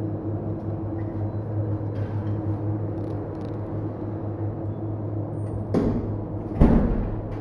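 A steady machine hum with a low drone, and two knocks near the end, the second louder.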